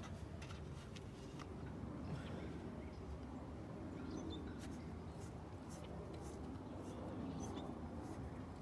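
Faint light clicks and squeaks of a spiral floodlight bulb being twisted out of its socket, over a steady low outdoor rumble.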